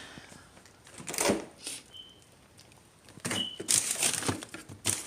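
Kitchen handling noises: a sharp knock, then a run of clatters and knocks, with two short high-pitched tones between them.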